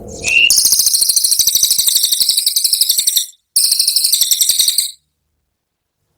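Cililin bird singing its 'tembakan' burst: a loud, high, very fast rattling trill of about fourteen notes a second lasting some three seconds, then after a brief break a shorter second burst, cut off suddenly about five seconds in.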